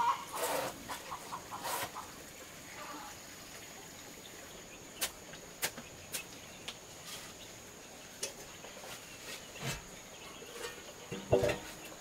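Quiet farmyard background with chickens clucking in short bursts during the first couple of seconds and scattered sharp clicks. Near the end comes a loud metallic clunk with a brief ring, as a lid is set on a large metal cooking pot.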